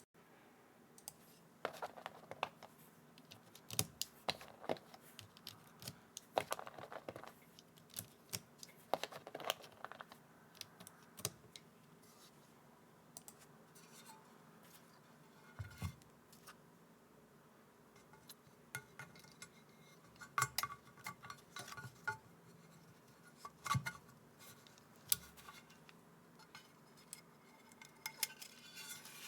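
Akko × HMX Stellar Rose mechanical keyboard switches being handled and fitted into a Neo65 board. Light plastic clicks and clacks come in irregular clusters, with quieter stretches between them.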